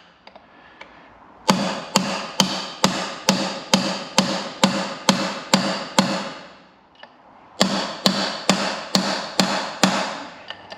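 Hammer blows on a punch, driving the Bristol Hercules reduction gear out of its aluminium case: steady ringing metallic strikes at about two and a half a second. They come in two runs, pausing about six seconds in and starting again a second and a half later.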